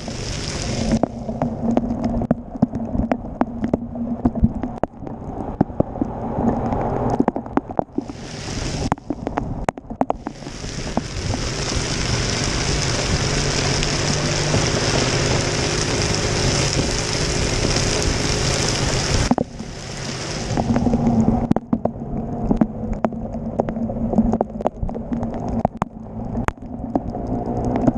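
A Honda Dash 125 motorcycle ridden through heavy rain on a flooded road. There is a low rumble of wind and rain knocking on the microphone. For about nine seconds in the middle a loud, steady hiss of rain and water spray takes over, with shorter bursts of it at the start and near eight and twenty seconds.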